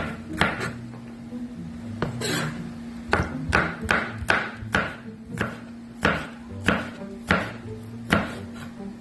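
Kitchen knife slicing long green finger chilies on a plastic cutting board: a series of sharp knocks of the blade on the board, uneven at about one and a half to two a second.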